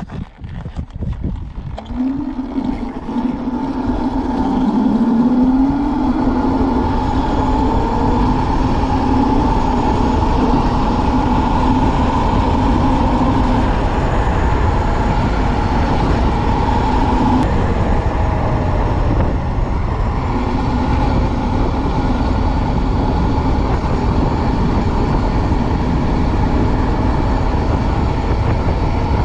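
72-volt QS90 electric motor on a mini-bike whining under full throttle. Its pitch rises over the first few seconds as the bike accelerates, then holds steady at top speed, with heavy wind rumble on the microphone.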